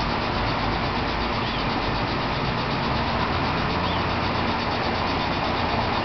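An engine running steadily at idle, an even drone that holds the same pitch and level with no revving.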